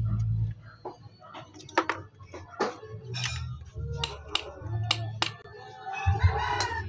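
Metal tools and engine parts clinking against a motorcycle engine crankcase as it is taken apart: a string of sharp clinks about half a second to a second apart. A low hum is heard at the start and again near the end.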